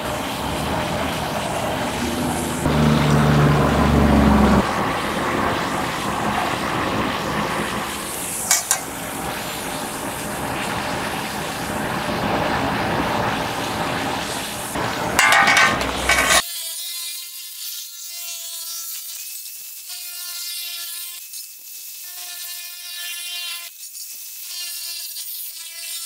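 Scratching and rubbing of a pen drawn along the edges of a sheet-metal patch panel, over a steady hiss, with a few short clicks. About sixteen seconds in it cuts off suddenly and gives way to background music with held notes.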